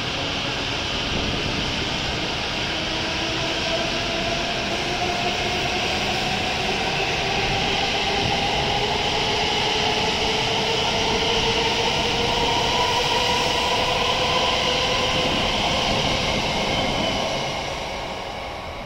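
W7 series Shinkansen train pulling out and gathering speed, with a whine from its traction motors that rises slowly in pitch over the running noise of the passing cars. The sound falls away near the end as the last car clears the platform.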